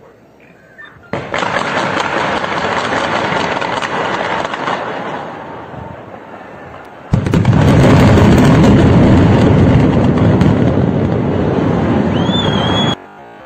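Explosive demolition of a high-rise tower: the crackle of detonating charges breaks out suddenly about a second in. From about seven seconds a louder, deeper roar of the collapse follows, and it cuts off abruptly near the end.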